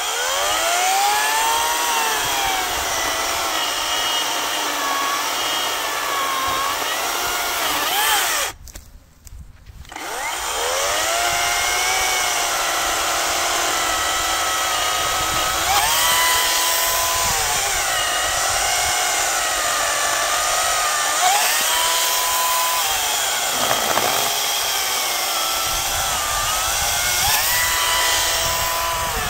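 Parkside PKSA 40-Li A1 dual-battery cordless chainsaw cutting through an old stump, its motor whine dropping in pitch as the chain bites into the wood and rising again when it runs free. The saw stops briefly about eight and a half seconds in, then starts again and keeps cutting.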